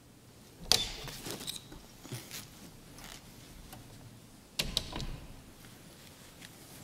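Wooden side door in an iconostasis opened with a sharp clatter about a second in, then shut again just before five seconds in with a second clatter, with smaller knocks and rattles of the latch and hinges in between.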